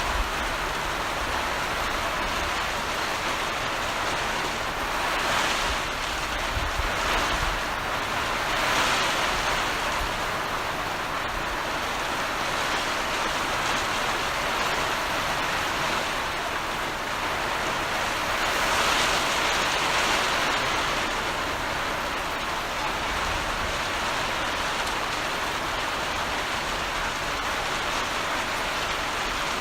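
Heavy rain falling in a steady downpour, swelling louder twice, about a quarter of the way in and again near the middle.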